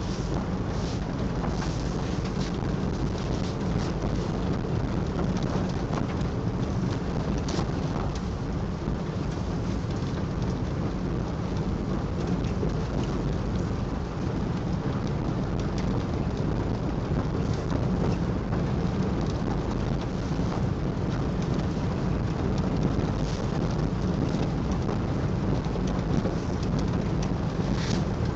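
Steady low road and engine rumble inside a moving car's cabin, with scattered faint crackles over it.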